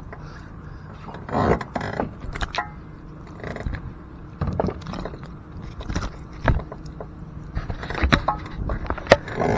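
Irregular knocks, scrapes and rattles of fishing gear being handled in a small boat, over a faint steady hum.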